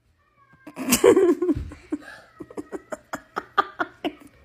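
A person laughing: a loud burst about a second in, then a quick run of short laughs.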